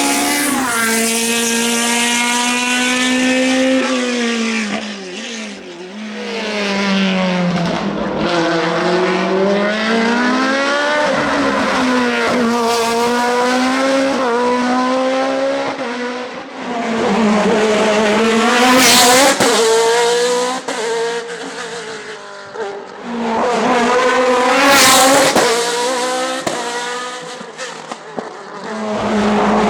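Racing car engines at high revs, the pitch climbing and dropping again and again with throttle and gear changes. The engine note gets louder at moments about two-thirds of the way in and near the end.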